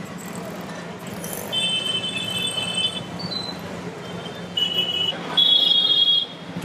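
Vehicle horns honking over steady street traffic noise: three held honks, the last about a second long and the loudest.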